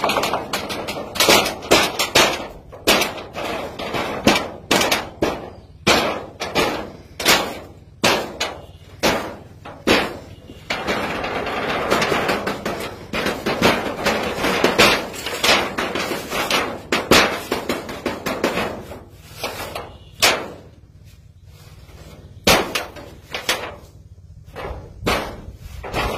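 Repeated sharp bangs and metallic clangs at an irregular pace, about one or two a second, with a denser stretch of noise in the middle and a quieter lull a little before the end.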